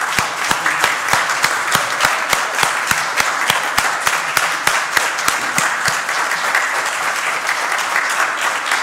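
Congregation applauding, with one nearby clapper's loud, steady claps about three a second that stop about six seconds in while the rest of the applause goes on.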